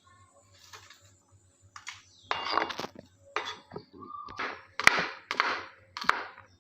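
Kitchen handling sounds: about six short clatters and scrapes of utensils and dishes, coming close together from about two seconds in, over a faint low hum.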